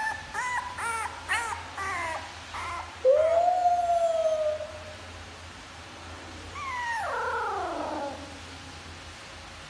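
Young puppy howling: a string of short rising-and-falling yelps, then one long, louder howl about three seconds in, and near the end a howl that slides steeply down in pitch.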